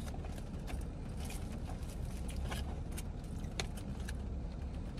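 Fork and foil handled in a cardboard takeout box: irregular small clicks, ticks and crinkles over a steady low rumble.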